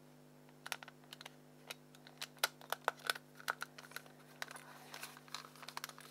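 Irregular small plastic clicks and taps as a Nokia 9110 Communicator's battery and back cover are snapped into place and its keypad buttons are pressed.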